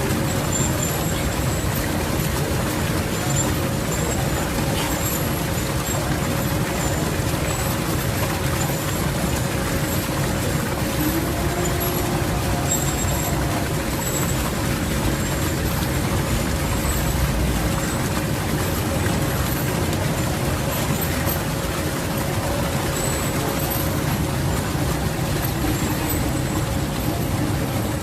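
Waterfall: the steady, unbroken roar of falling water.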